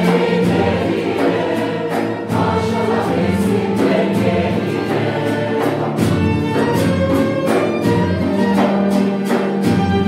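Mixed choir singing a Turkish Cypriot folk song in Turkish, accompanied by violins, cello and plucked strings. About six seconds in, the voices drop out and the instruments carry on alone with an evenly beaten accompaniment.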